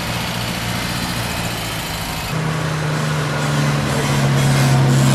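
Classic cars driving slowly past: a Mercedes-Benz 190 SL roadster, then a Jaguar Mk 2 saloon. The Jaguar's straight-six sets in with a steady low engine note about two seconds in, growing louder as it comes by.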